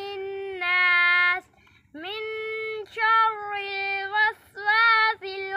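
A boy reciting the Quran in a melodic chant (tilawat), holding long notes that step slightly down in pitch. The phrases are broken by short pauses for breath.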